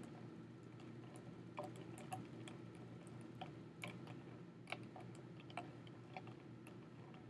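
Faint, irregular clicks and knocks of ice chunks in water, stirred with a temperature probe in a foam cup, over a steady low hum.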